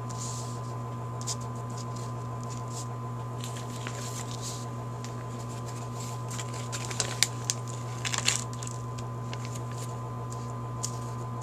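Hands sliding paper gaskets and a plastic parts bag across a sheet of paper: soft rustling, then a few sharp little clicks about seven to eight seconds in as small carburetor parts are set down. A steady low hum runs underneath.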